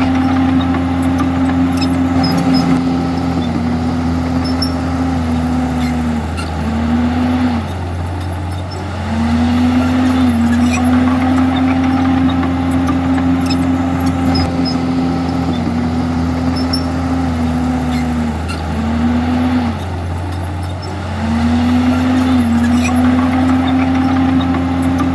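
Komatsu D51EX crawler bulldozer's diesel engine running steadily under load. Its pitch sags and its level drops briefly twice, about seven and nineteen seconds in, then recovers.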